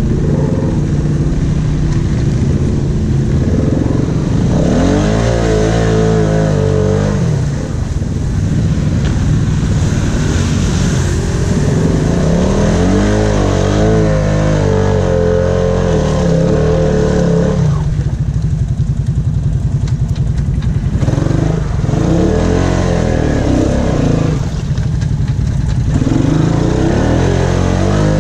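Honda Rubicon ATV's single-cylinder engine running under way, revving up and easing off again several times as the quad works along a rough, muddy trail.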